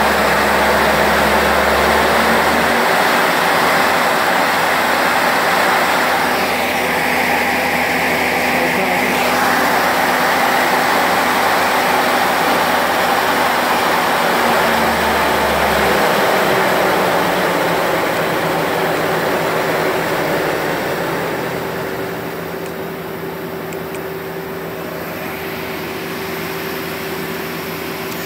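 Mazak Quick Turn Nexus 200 CNC lathe spindle spinning its three-jaw chuck with no cutting: a steady mechanical whir carrying a few steady tones, which shift a couple of times. It grows quieter about three quarters of the way through.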